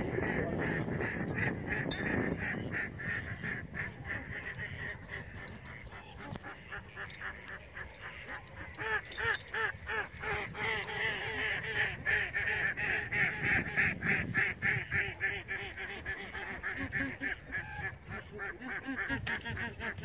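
Geese honking and ducks quacking in a rapid, continuous run of calls, growing denser and louder about halfway through.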